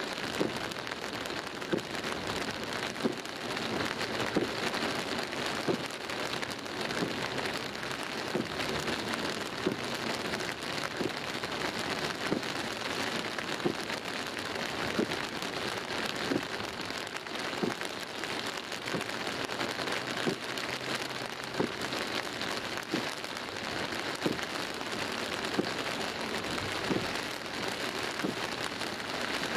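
Heavy rain pelting the car's windscreen and roof, heard from inside the car. It is a steady, dense hiss with frequent sharper hits from individual drops.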